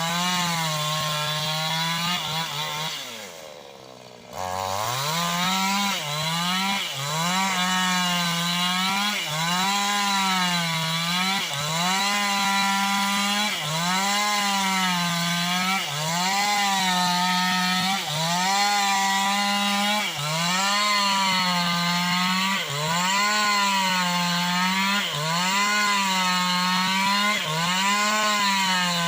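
New West 568 two-stroke chainsaw running at high revs while ripping bayur wood lengthwise into planks, its pitch dipping and recovering about every two seconds as the chain takes load. About three seconds in, it drops briefly toward idle, then revs back up.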